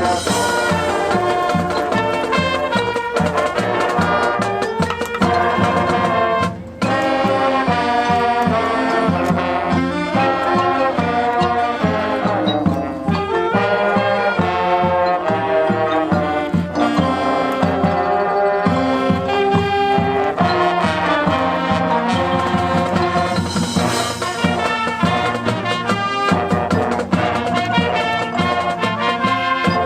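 High school marching band playing its field show, with brass (trombones and trumpets) carrying the melody over drumline percussion. The playing breaks off for a moment about seven seconds in.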